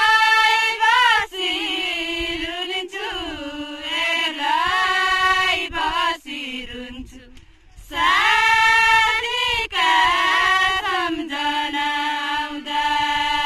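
Women's voices singing a Deuda folk song together, unaccompanied, in long drawn-out phrases. There is a short break a little past halfway before the next phrase begins.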